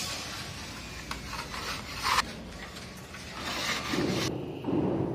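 Steel putty knife scraping and smoothing joint compound along a gypsum-board corner bead in several strokes, the finishing coat. Near the end the scraping gives way to a low rumbling noise.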